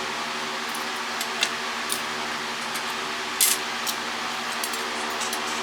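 Small clicks and scrapes of plastic phone parts and tools being handled during a cordless-phone teardown, the loudest about three and a half seconds in, over a steady electrical hum.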